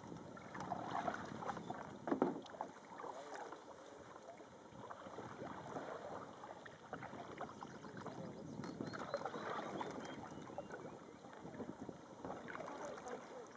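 Water splashing and lapping around a canoe on calm river water: an irregular run of small splashes, drips and paddle dips, with a sharper splash about two seconds in.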